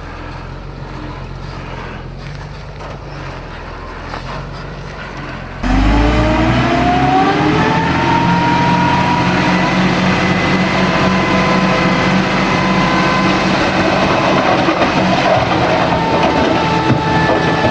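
Heavy diesel engine of earthmoving equipment running at low throttle. About five and a half seconds in it jumps sharply louder and revs up, then holds a steady, hard-working drone to the end.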